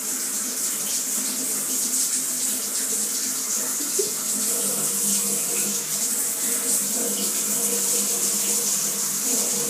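Shower running: a steady hiss of spraying, falling water.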